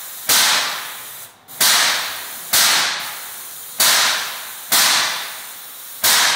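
Airless paint sprayer spraying epoxy floor paint: a loud hiss that jumps up sharply about once a second and fades in between, pulsing with the pump's strokes.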